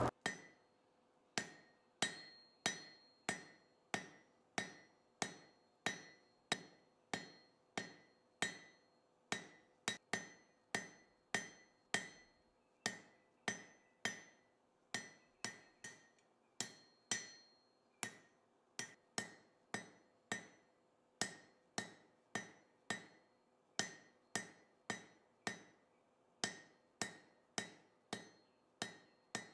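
Blacksmith's hand hammer striking hot iron on an anvil in a steady rhythm, a little under two blows a second, each blow ringing briefly: drawing out a square taper on the stem of a forged leaf hook.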